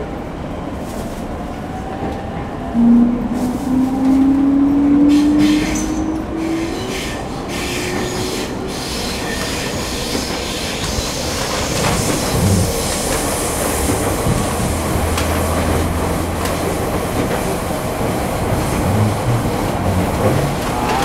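Sotetsu 10000 series electric train heard from inside the carriage. From about three seconds in, its Mitsubishi IGBT-VVVF inverter gives a loud whine that rises steadily in pitch as the train accelerates. The wheels then run on with rumbling and rail-joint clicks.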